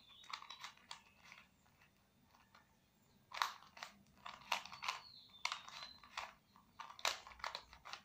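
A 3x3 Rubik's cube being turned by hand: quick runs of plastic clicks and rattles as its layers snap round, with a pause of about two seconds near the start.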